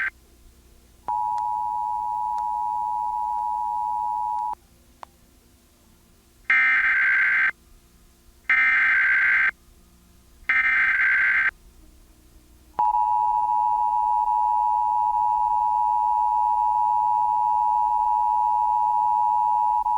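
Emergency Alert System tones: the two-tone attention signal (853 and 960 Hz) sounds steadily for about three and a half seconds and cuts off abruptly. Then come three one-second bursts of SAME digital header data, evenly spaced, which encode a tornado warning. The two-tone attention signal then starts again and holds steady.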